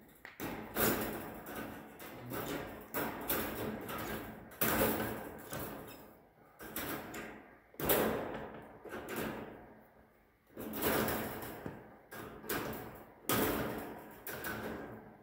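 Wire fence mesh clanking and rattling against the workbench as it is handled, bent and cut with pliers: a dozen or so irregular sharp clanks, each ringing out and fading over about a second.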